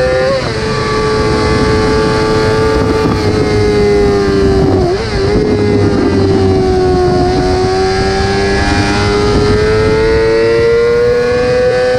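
Yamaha YZF-R6 (RJ15) inline-four engine running at high revs with a high-pitched, steady scream. The pitch drops suddenly just after the start, dips briefly about five seconds in, sags slowly, then climbs again toward the end.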